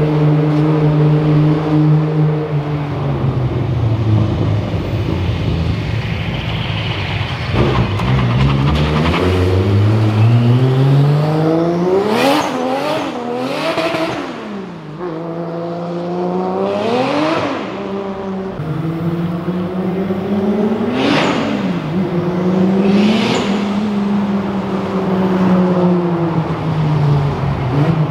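Toyota Supra MK3's engine idling steadily for the first few seconds, then revving up in a long rise and several quick blips to high revs and back down as the car is driven.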